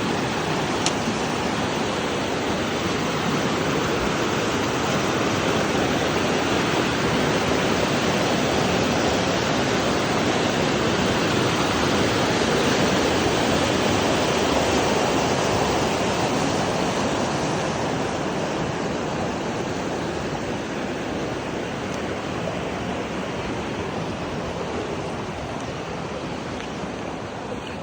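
Rushing creek water, a steady hiss of noise that grows to its loudest about halfway through and then slowly fades.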